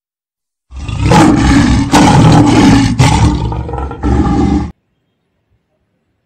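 A loud, roar-like intro sound effect lasting about four seconds, with sharp hits about once a second, that cuts off abruptly.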